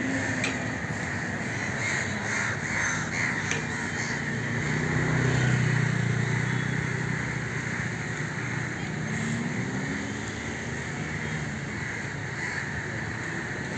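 Crows cawing, a run of short calls in the first few seconds, over a steady background rumble with a low engine hum that swells about halfway through.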